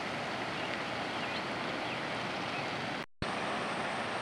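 Steady rush of a flooded, overflowing creek, cutting out briefly about three seconds in.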